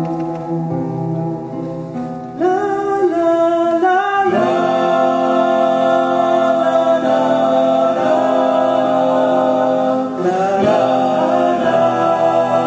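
Male vocal group singing sustained chords in close harmony, swelling louder about two seconds in and fuller again around four seconds, with a brief dip near ten seconds.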